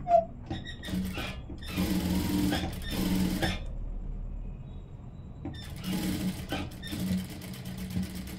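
Jack industrial sewing machine stitching across a pleated fabric sleeve in two runs, with a pause of a second or two between them. A sharp click comes just at the start.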